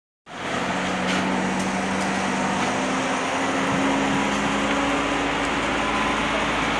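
A steady machine drone, like a motor running, with a low hum that drifts slightly up in pitch. It starts abruptly just after a moment of silence.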